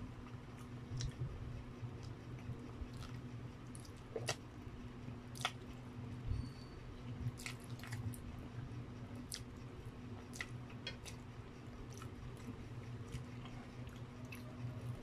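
Close-up chewing and slurping of spaghetti, with wet mouth clicks and smacks at irregular moments. A steady low hum runs underneath.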